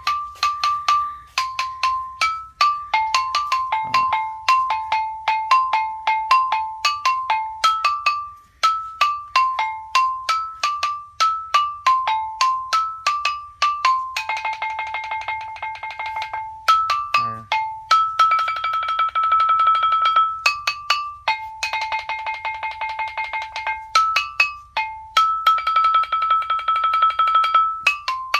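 A wooden or bamboo xylophone-type instrument struck with mallets, playing a lively melody of quick single notes. From about halfway through, the long notes are held as fast rolls of repeated strokes.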